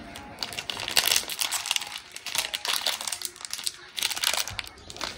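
Thin plastic bread bag crinkling in irregular bursts as a cat bites and tugs at the bread slice held in it.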